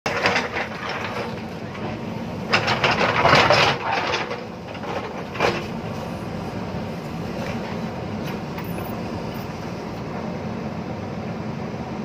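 JCB backhoe loader's diesel engine running steadily as its bucket digs into a stony hillside, with loud scraping and crashing of rock in the first second, again between about two and a half and four seconds in, and once more near five and a half seconds. After that only the engine is heard.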